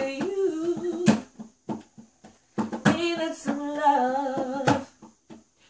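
A young woman singing a slow melody in two phrases with a pause between, to a strummed guitar.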